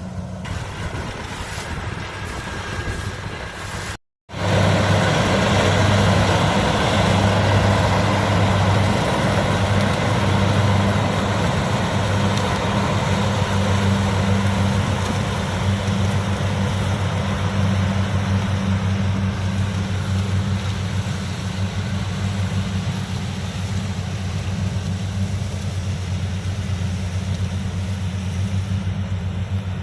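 Kubota DC-70 combine harvester's diesel engine and threshing machinery running steadily under load, with a deep, even hum. The sound breaks off for a moment about four seconds in, then comes back louder.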